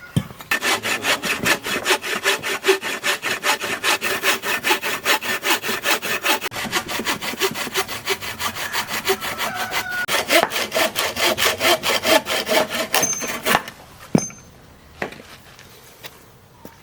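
Hand saw cutting through wood in fast, even back-and-forth strokes, about five a second. The strokes stop abruptly near the end, followed by a single knock.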